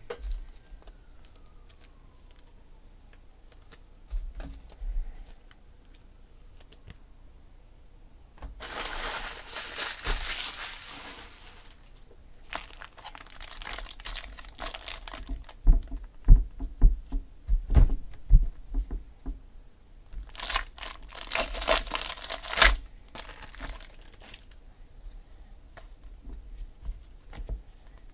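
Foil trading-card pack wrappers being torn open and crinkled, in three stretches of crackling. Between them comes a run of sharp clicks and knocks, louder than the crinkling, as the packs and cards are handled.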